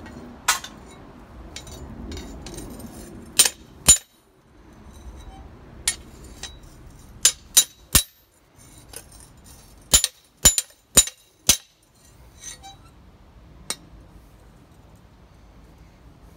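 Hammer striking a lawnmower-blade cleaver blank on a piece of railroad rail used as an anvil: about fourteen sharp metallic clinks in irregular groups of two to four. The blade is being knocked straight to take out a slight bow.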